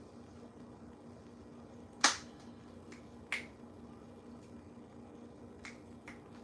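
A few short, sharp clicks. The loudest comes about two seconds in and another about a second later, with fainter ones after, over a faint steady low hum.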